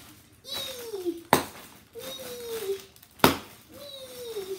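Two sharp, loud knocks of a hard object on a hard surface, about two seconds apart. Short falling vocal sounds from a child come in between and after them.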